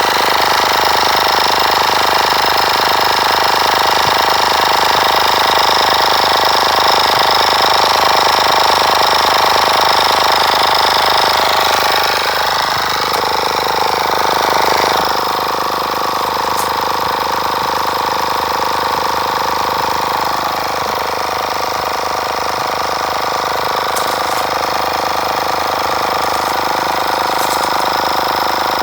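WindGallop cordless portable air compressor running, its small piston pump chattering steadily as it pumps air into a car tire toward a 50 psi setting. About halfway through its tone shifts and it gets slightly quieter.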